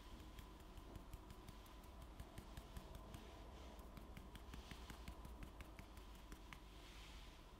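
Faint, rapid light ticks of a sieve being shaken to dust powdered sugar, with a soft sifting hiss now and then.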